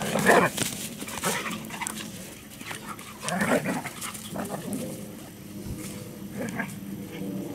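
Dogs vocalising during rough play between a black Labrador puppy and a Belgian Malinois. There is a loud outburst right at the start, another about three and a half seconds in, and smaller sounds in between.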